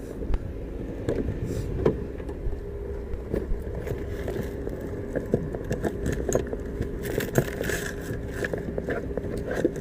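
Rummaging through a car's seat area: scattered clicks, knocks and rustles of items being moved and handled, over a steady vehicle hum.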